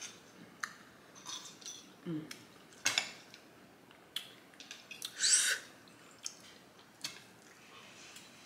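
Someone eating soup: a spoon clinking sharply against the bowl several times, with slurping and lip-smacking chewing between the clinks.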